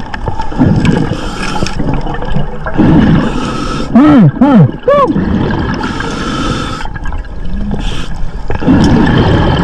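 Underwater recording of scuba breathing, with rushing, bubbling bursts of exhaled air from a regulator coming every few seconds. About halfway through, three short falling tones sound in quick succession.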